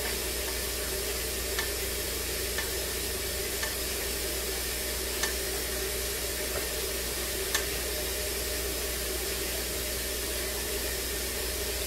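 Steady hiss with a low hum and a few faint light clicks, as melted salve is poured slowly from a glass measuring cup into small aluminium tins.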